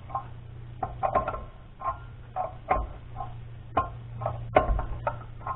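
Irregular metal clinks and knocks, about two a second, from metal parts being handled and fitted, over a steady low hum.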